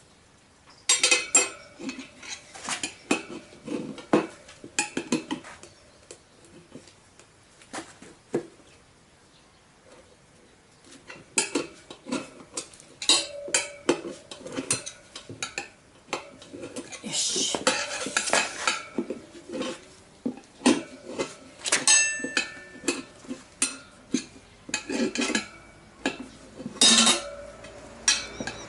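Steel tyre levers clinking and scraping against the chrome rim of a spoked motorcycle front wheel as the tyre bead is levered over it. The sharp metallic clinks come in irregular bursts, some with a short ring, with a pause of a few seconds near the middle.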